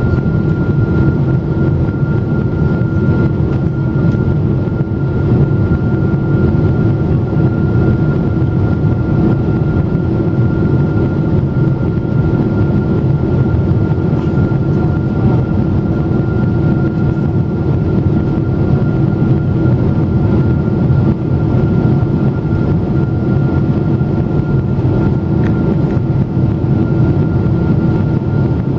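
Steady jet engine and airflow noise inside the cabin of a Boeing 777-200 in flight after takeoff: a deep, even rush with a few constant whining tones over it.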